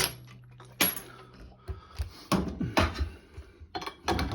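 Tools clinking and knocking against the metal parts of a washing machine being taken apart: five or six separate clanks, the sharpest about a second in, over a faint low hum that stops after about a second and a half.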